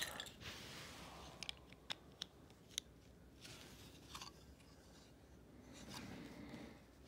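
Faint rustling of cloth rubbing against the phone, with a few small sharp clicks scattered through the first half.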